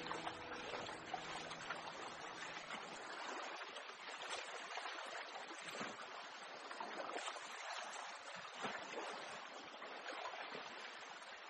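Pen scratching on paper in small strokes as an eye is inked: a steady hiss with faint scratches. Background music fades out in the first second or so.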